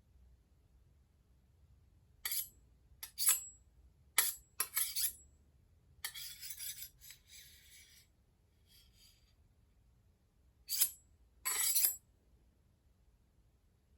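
Light clinks of small hard objects, glassy or metallic, in short clusters, with a longer rattling jingle about six seconds in and two more clinks near the end.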